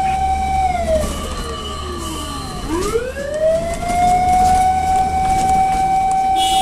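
Fire truck siren wailing: a held high tone winds down starting about half a second in, bottoms out near the middle, then sweeps back up and holds high until it starts falling again at the very end, over a steady low engine rumble.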